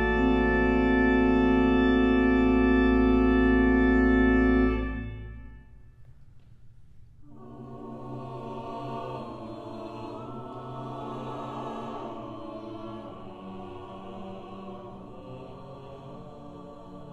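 Organ holding a loud, full sustained chord that is released about five seconds in and dies away in the hall's reverberation. After a pause of about two seconds a mixed SATB choir comes in, singing more softly.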